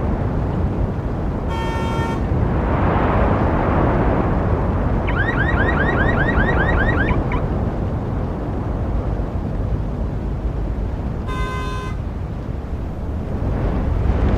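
Road traffic rumble with two short car-horn toots, one near the start and one near the end. In the middle, an electronic alarm or siren warbles for about two seconds in fast rising sweeps, about six a second.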